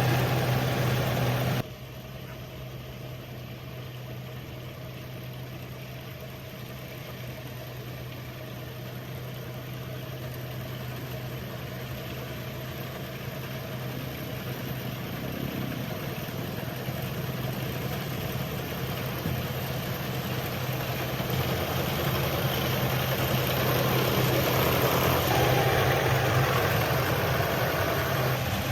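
Combine harvester engine running steadily with a low hum. About two seconds in it drops sharply to a quieter level, then slowly grows louder again toward the end.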